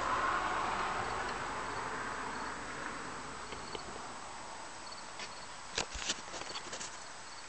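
A rushing hiss that fades away over the first few seconds, then a couple of sharp clicks about six seconds in from the fittings of an A/C manifold gauge set being handled.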